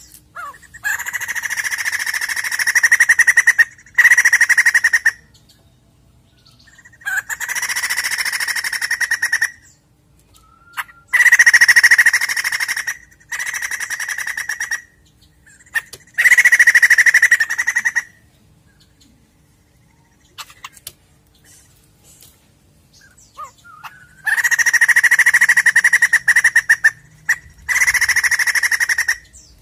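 White-crested laughingthrush calling in loud bursts of rapid, harsh chattering, each one to three seconds long, about eight in all. After the middle there is a pause of about six seconds with only a few faint chirps.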